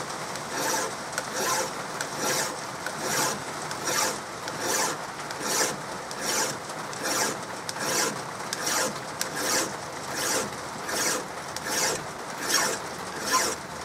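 Flat hand file rasping across a machined metal cylinder block for a model locomotive, in steady, even strokes a little faster than one a second. The file is hand-finishing the milled surface, rocked along to avoid flat spots.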